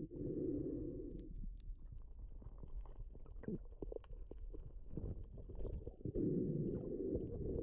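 Muffled underwater sound through a GoPro's housing: a low rush of water at the start and again from about six seconds in, with scattered clicks and knocks in between.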